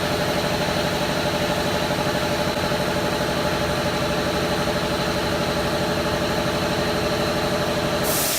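Double-head aluminium cutting saw running steadily, its motor and blade giving an even hum with a high whine. Near the end a sudden hiss starts and the running sound begins to fade.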